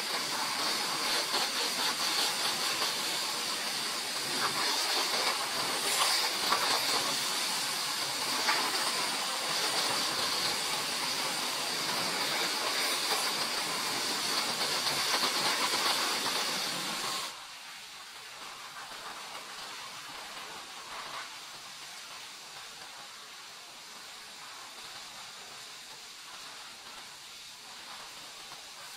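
High-pressure washer lance spraying water onto a car's bodywork and wheel, a loud steady hiss. It cuts off suddenly a little over halfway through, leaving a quieter steady hiss.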